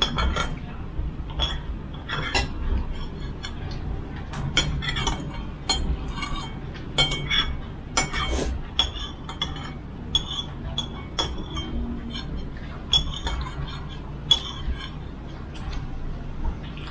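Spoons and bowls clinking irregularly as people eat, many light sharp clinks one after another.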